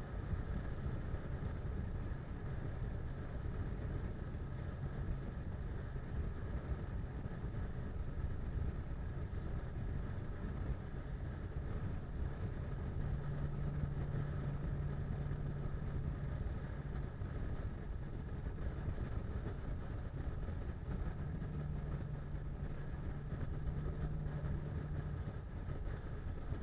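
Steady road and engine noise of a car cruising at highway speed, a constant low rumble with a low hum that grows stronger for a few seconds about halfway through and again near the end.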